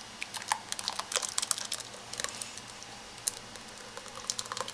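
Rapid, irregular clicks and light taps of cookware as a thick jelly mixture with fruit cocktail is poured from a stainless pot into a ceramic bowl. The clicks come thickest in the first couple of seconds and again twice near the end.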